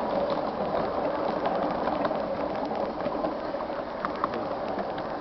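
Passenger train on a 7¼-inch-gauge miniature railway running, a steady rumble of wheels on the rails with scattered clicks, easing a little in loudness toward the end.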